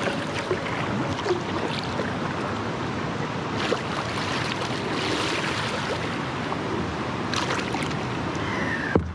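Water splashing and lapping around a kayak's hull as it is paddled along, with a few louder paddle splashes.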